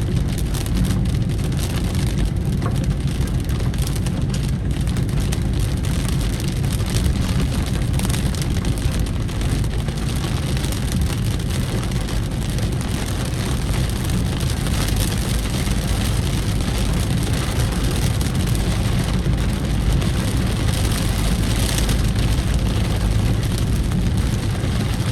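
Steady road noise of a vehicle driving in the rain: a continuous low rumble under an even hiss of rain and wet tyres.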